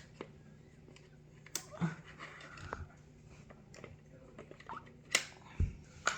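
Plastic Tumblin' Monkeys game pieces being handled: a few sharp clicks and a low knock, with faint voice sounds in between.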